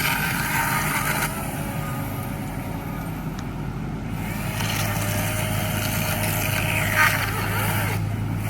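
Heavy machinery engine running steadily, with stretches of harsher mechanical noise over it near the start and again past the middle.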